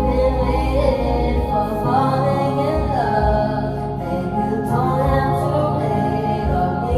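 Background music with a sung melody over a steady bass line.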